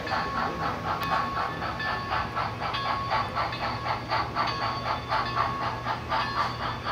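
Sound decoder in an HO-scale Blue Line model of Frisco steam locomotive #1630 playing steady, rhythmic steam exhaust chuffs, about five a second, through its small onboard speaker, over a steady hum.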